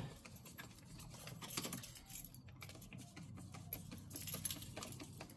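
Light metallic clicks and clinks of hand tools working the hose clamps on a diesel engine's air-intake elbow, with a faint steady hum underneath.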